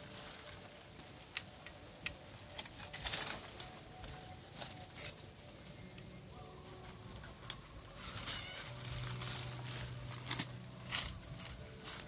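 Dry twigs, roots and leaf litter crackling and rustling as they are handled and pulled away from the base of a ficus stump, with scattered sharp snaps. A low buzz comes in for about two seconds a little past the middle.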